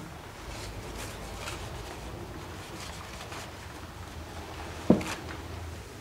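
Hands and tools working on a chainsaw on a bench: faint rustles and light ticks over a steady low hum, then one sharp knock about five seconds in.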